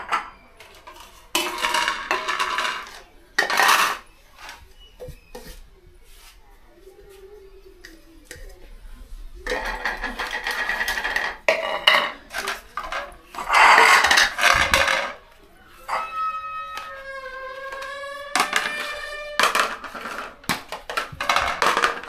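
Plastic plates and bowls clattering as they are set down one by one on a concrete floor, in several short bursts with quiet gaps between. About three-quarters of the way through there is a drawn-out pitched sound, like a voice or call, lasting a few seconds.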